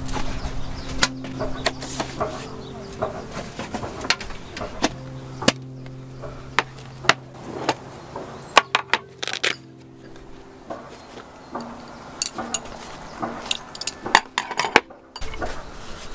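A round metal mosquito-coil tin and its lid being handled, and small objects set down on a table: a string of sharp clicks, taps and light metallic clinks, over a low hum that comes and goes.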